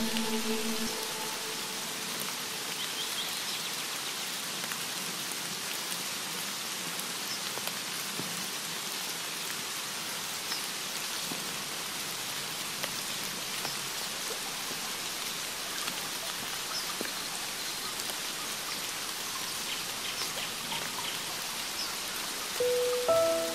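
Steady rain: an even hiss with scattered drop ticks. Javanese gending instrumental music fades out in the first second, and the next piece starts near the end.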